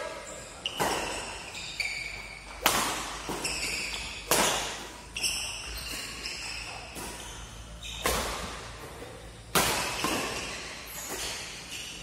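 Badminton rackets striking the shuttlecock in a fast doubles rally, a sharp hit roughly every second, echoing in a large hall, with short high shoe squeaks on the court between shots.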